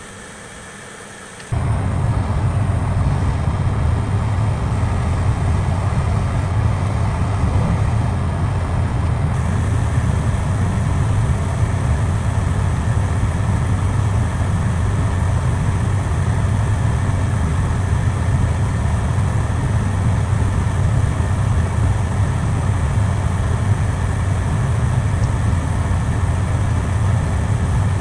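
Hot air rework station switched on about a second and a half in, blowing steadily with a low hum while it heats a USB-C charging chip off a circuit board to desolder it.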